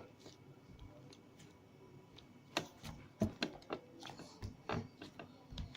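Sticky slime being pressed and rolled by hand: a string of irregular small clicks and pops, starting about two and a half seconds in.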